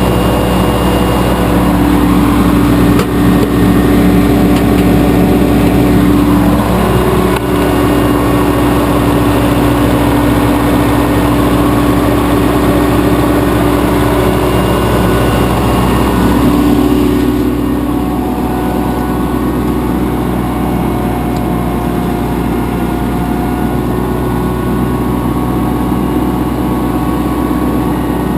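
Propane-fuelled engine of a Pelsue manhole generator/air compressor running steadily. Its level drops slightly about two-thirds of the way through.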